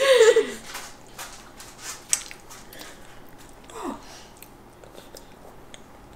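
Toddlers eating: a child's giggle trailing off and falling in pitch at the start, then soft clicks and smacks of chewing. A short voice sound falling in pitch comes about four seconds in.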